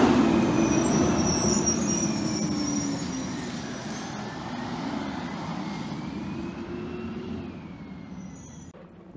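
Automated side-loader garbage truck driving away, its diesel engine fading steadily into the distance.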